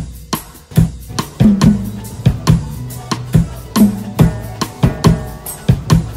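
Background music with a steady drum-kit beat, kick and snare hits over a bass line.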